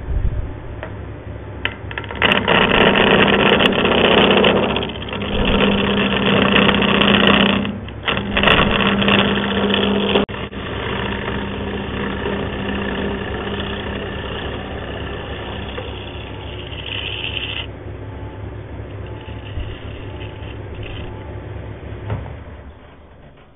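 Wood lathe running while a hand-held turning tool cuts the face of a spinning hardwood blank, over the motor's steady hum. Heavy cutting comes in three passes over the first ten seconds or so, then lighter, steadier cutting, and the noise falls away near the end.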